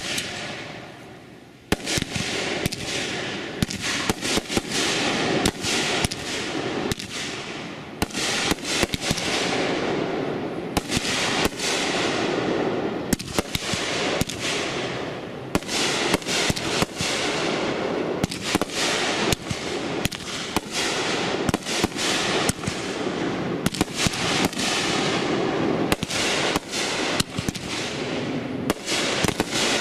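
500-gram fireworks cake, World Class Fireworks' 'Great American Celebration', firing: a shot launches, and from about two seconds in, shots break overhead in quick succession as sharp reports, one to several a second, over a steady crackle.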